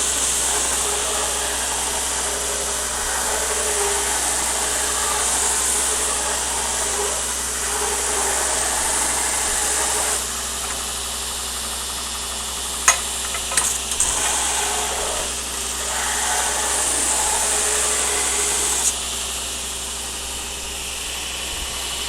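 Belt grinder running while a knife blade is ground against the belt. The grinding hiss swells and eases as the blade is pressed on and lifted, with a few sharp clicks about midway.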